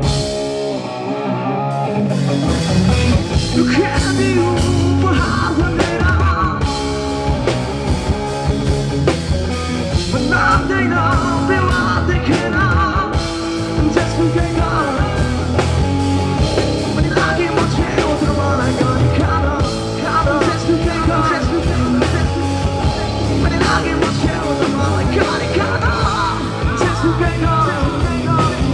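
Live rock band playing through a PA: electric guitar, bass and drum kit, with a singer's voice over them.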